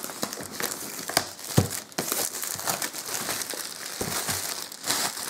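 Clear plastic shrink-wrap film being torn and peeled off a cardboard box, crinkling steadily with many small crackles and two sharper snaps between one and two seconds in.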